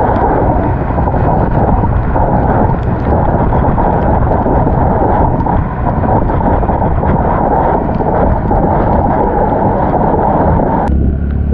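Heavy wind buffeting on the microphone of a camera on a moving motor scooter, with road and engine noise underneath. Near the end the sound changes suddenly to a steadier low hum with much less wind.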